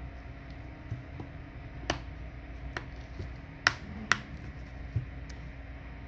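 Plastic back plate of a Samsung Galaxy A10e clicking as its clips snap loose one by one while a pry tool is worked around the phone's edge: several sharp separate clicks, the loudest two about three and a half and four seconds in, over a low steady hum.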